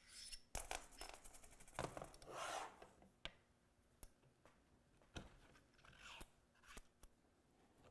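Quiet metal-on-metal scraping and clicking as a shock shaft and lock collars are slid and fitted through a snowmobile rear shock's eyelet by hand. There is a dense run of scrapes and clicks in the first few seconds, then a handful of single clicks.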